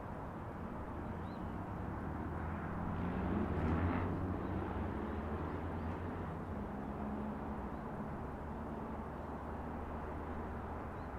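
A motor vehicle's engine running close by with a low, steady hum, swelling to its loudest about four seconds in as it passes and then settling back, over the steady noise of city traffic.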